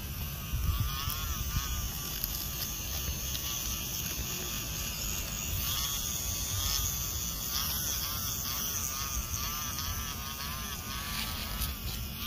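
Small electric motor of a toy electric tractor whining as it drives, its pitch wavering up and down over and over.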